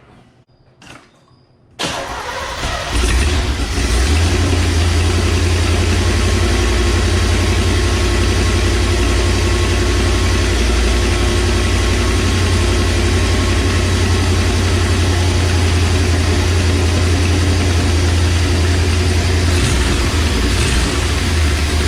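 1984 Corvette's 5.7-litre V8 starting about two seconds in, catching quickly and settling into a steady idle. A loud hiss rides over the low rumble: an exhaust leak, which the owner puts down to the O2 sensor being out and the rear exhaust not yet hooked up.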